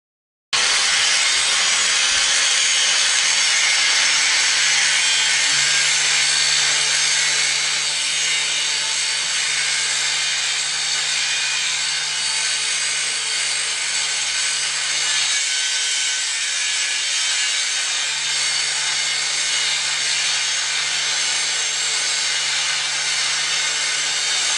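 Angle grinder running steadily while grinding into metal and throwing sparks, a continuous hiss and whine over the motor's hum. It starts abruptly about half a second in.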